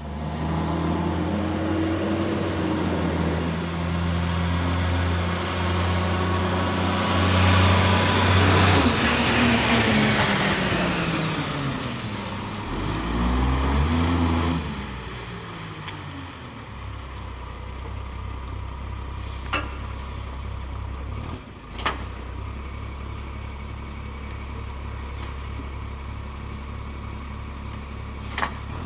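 Garbage truck's diesel engine running steadily, then revving up and down for several seconds in the middle with brief high squeals. It settles back to a lower idle with a few sharp knocks near the end.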